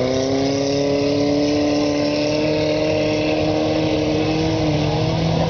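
Autocross race cars running on a dirt track. One engine's note rises in pitch and then holds steady at high revs, and a second, lower engine note joins near the end.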